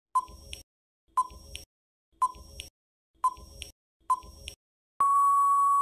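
Quiz countdown timer beeping once a second: five short beeps, then one long steady beep about five seconds in as the count runs out.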